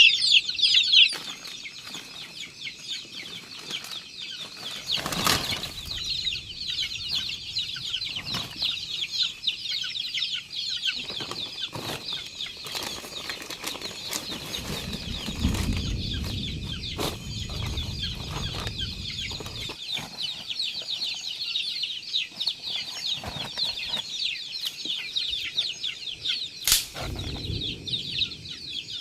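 A chicken flock with a constant high peeping chorus of many small chirps, with a few scattered knocks and a low rumble around the middle.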